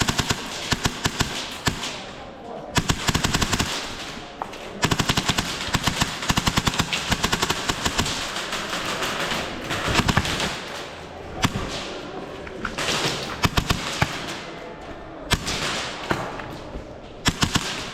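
Airsoft guns firing in repeated rapid bursts of full-auto fire, with short pauses between bursts.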